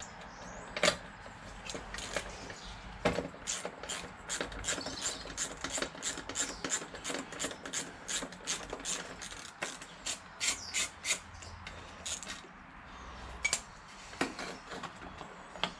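Hand socket ratchet clicking in quick, rapid runs as a small 8 mm bolt is unscrewed on a Honda VFR800, with a few separate knocks of tool handling before and after.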